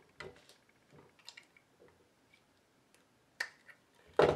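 Scattered small plastic clicks and scrapes of a screwdriver prying the flywheels off a Nerf blaster's motor shafts, with a louder snap near the end.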